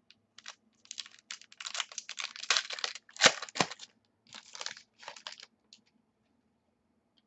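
A stack of trading cards being handled and shuffled, giving irregular crinkling, scraping and clicking, loudest in the middle and stopping about six seconds in.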